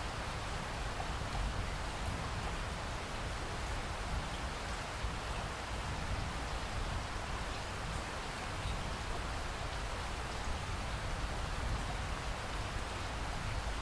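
Steady rain falling on a surface, an even hiss of many drops with no breaks or single loud strikes.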